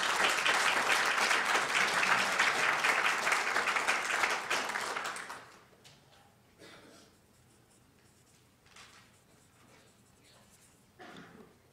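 Audience applauding for about five seconds, then stopping, leaving a quiet room with a few faint knocks and rustles.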